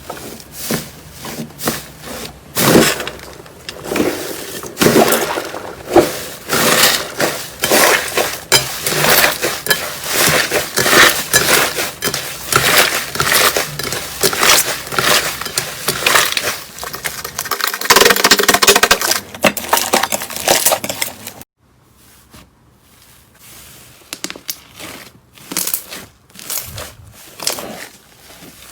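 Slime being squeezed and pressed by hand, with a dense run of crackles and pops. About three quarters of the way through it cuts off abruptly and gives way to quieter, sparser crackling.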